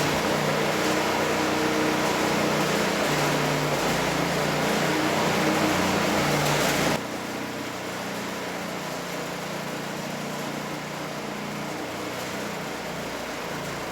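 Terrazzo floor grinding machine running steadily: a motor hum with a grinding hiss from the stones working the cured floor. About seven seconds in, the noise drops suddenly to a quieter, steady level.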